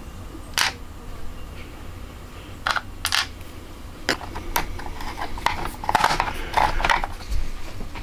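Light, sharp clicks and taps of small parts and tweezers against a plastic keyboard case during reassembly, a few at first and then a quick cluster about six to seven seconds in, over a low steady hum.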